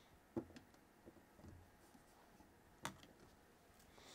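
Near silence with a few faint clicks of a screwdriver working against the metal carburetor body as a jet is tightened: a couple just after the start and one about three seconds in.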